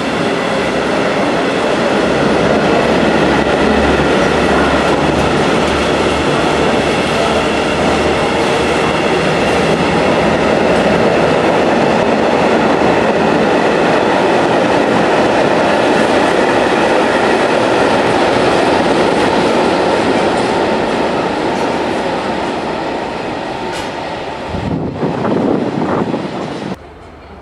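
Freight train of covered steel-coil wagons rolling past, its wheels rumbling on the rails with a steady high ringing over the top. The noise eases as the last wagons go by, rises briefly, then cuts off suddenly near the end.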